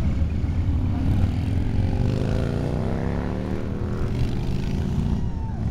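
Several motorcycle engines rumbling as they ride past in a group, with one bike's engine note climbing in pitch around the middle as it pulls by.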